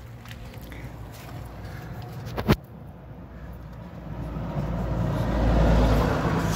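A passing road vehicle, its noise swelling and then easing about five to six seconds in, over a low rumble, with one sharp knock about two and a half seconds in.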